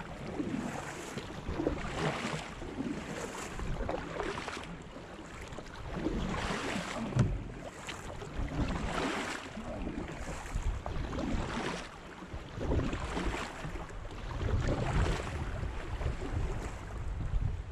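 Kayak paddle strokes dipping and splashing in fast-moving river water, in irregular surges every second or two, with the current rushing past the hull and wind buffeting the microphone.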